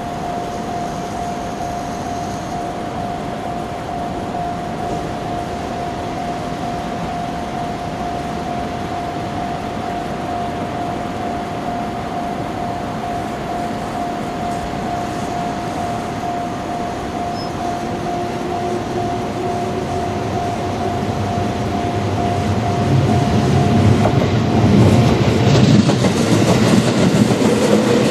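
A level-crossing warning bell rings steadily as a train approaches over the Nippō Main Line. The train's wheels rumble and clatter on the rail joints, growing louder in the last several seconds as it reaches the crossing.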